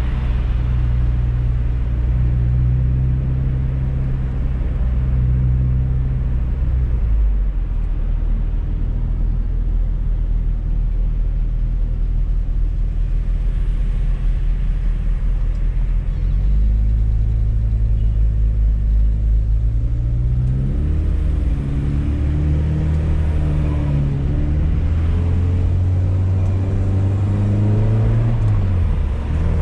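Fiat Coupe 16V Turbo's turbocharged four-cylinder engine pulling hard, heard from inside the car. The engine note holds steady, drops about a quarter of the way in, then climbs in pitch again and again through the second half, with a brief dip near the end, as the car accelerates through the gears.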